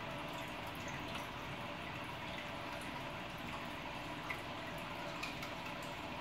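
An aquarium bubble wall bubbling steadily, air bubbles breaking at the water surface with small scattered drips and pops.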